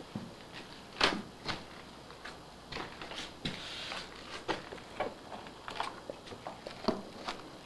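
Irregular footsteps and knocks on bare wooden floorboards, with the loudest knock about a second in.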